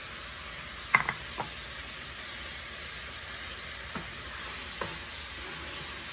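Sauce liquid sizzling in a wok on high heat as it is cooked down to thicken, stirred with a wooden spatula, with a few knocks, the loudest about a second in.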